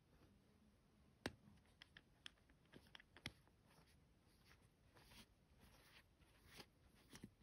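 A metal watch caseback being fitted by hand onto the back of the case, making faint clicks and light scrapes of metal on metal. The sharpest click comes about a second in, followed by a quick run of lighter clicks, and there are a few softer taps near the end.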